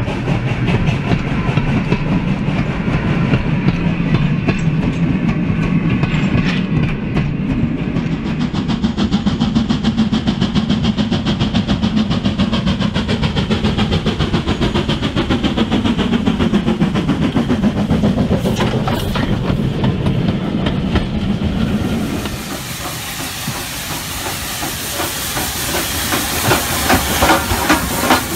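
OO gauge model steam train running: a steady low rumble with a rapid clickety-clack of wheels on the track. A little past three-quarters of the way through, the rumble drops away and a loud steam hiss takes over.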